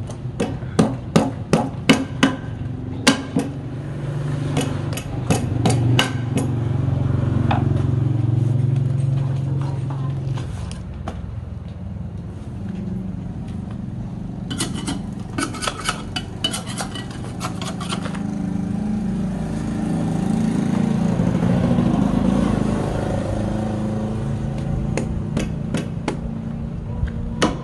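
Sharp knocks of a knife chopping roast pork on a chopping board, a few a second for the first six seconds and again about fifteen to eighteen seconds in. A low motor rumble swells twice underneath.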